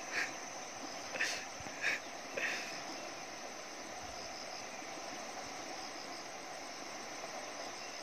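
Steady rushing of a fast-flowing, flood-swollen muddy river running bank-full after heavy rain. A few short sharp sounds come in the first two and a half seconds, and faint insect chirping sits underneath.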